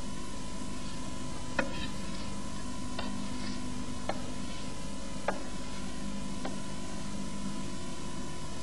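Steady hiss with a constant low hum and a higher hum tone, and a few faint clicks about a second apart.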